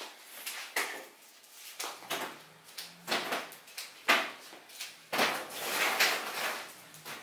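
Irregular sticky rubbing and peeling noises as a thick rope of pulled sugar candy is stretched and looped over a wooden pole, with a sharper hit about four seconds in.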